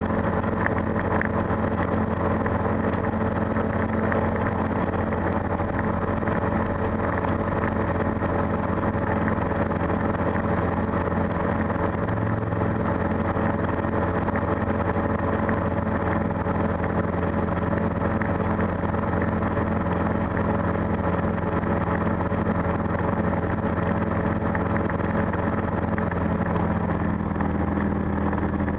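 Calidus gyroplane's flat-four engine and pusher propeller running steadily, heard inside the enclosed cockpit. Its note shifts slightly near the end.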